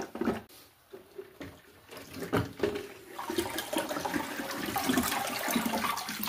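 Water sloshing and running in a toilet cistern as a new plastic siphon is lowered and pushed down into it, with a few light plastic knocks in the first couple of seconds. The water sound builds from about two seconds in and carries on steadily.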